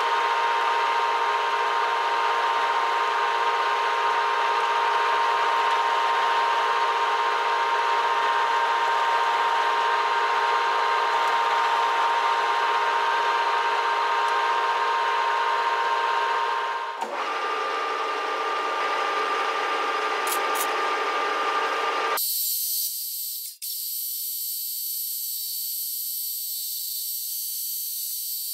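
Metal lathe running with a steady whine from its motor and gearing while a drill held in the tailstock drill chuck bores into the centre of the spinning bar. The whine changes pitch abruptly a little past halfway, and for the last few seconds the sound turns thin and high-pitched.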